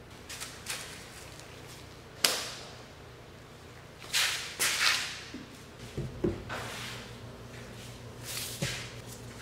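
Hand-work noises while the dirt bike's air filter is being changed: one sharp snap about two seconds in, then a run of rustles, scrapes and light knocks.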